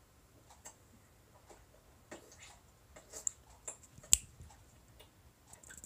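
Metal nail file against a plastic full-cover nail tip: scattered light clicks and short scrapes as the tip is filed to shape, the sharpest click about four seconds in.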